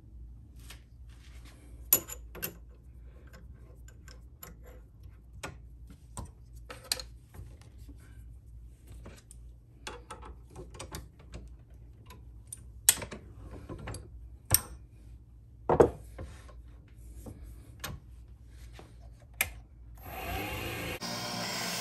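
Scattered clicks and knocks of metal parts being handled as a twist drill bit is fitted into the wood lathe's tailstock drill chuck, over a faint low hum. A steady hiss starts near the end.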